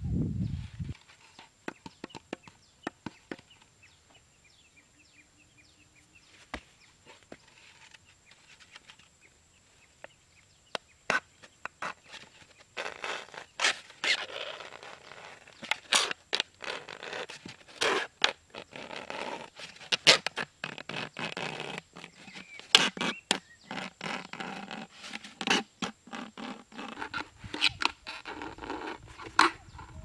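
A knife blade scraping and sawing through a thin clear plastic soda bottle, the plastic crackling and clicking. The sound is sparse at first, then dense and continuous from about halfway on.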